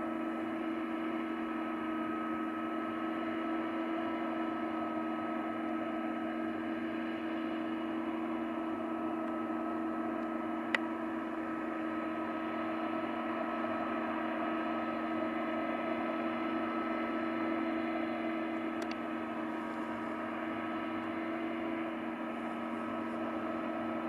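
Case IH Axial-Flow combine harvester running steadily at work: an unchanging machine drone with a few steady whining tones. A single sharp click about eleven seconds in, and a fainter one later.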